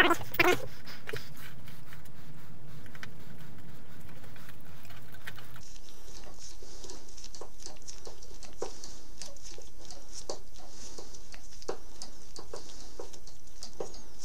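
Faint scattered clicks and light taps of small metal parts and hand tools being handled during work on a motocross bike. Partway through, a steady high hiss comes in behind them.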